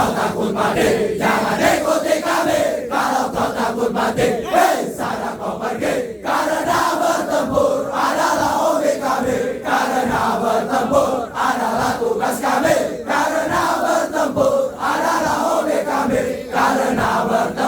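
A large group of male trainees chanting and shouting together in unison, a military-style group yell.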